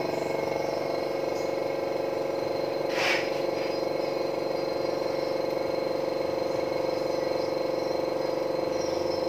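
Izumi Max OM 0724 oil-less 24-litre air compressor running, its twin-head pump giving a steady hum, with a brief rush of noise about three seconds in.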